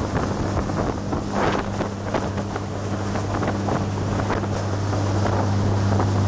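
Yamaha DY48H boat's Volvo Penta D9-575 six-cylinder diesel inboard running steadily at planing speed, a constant low hum under loud rushing water and spray slapping the hull, with wind buffeting the microphone.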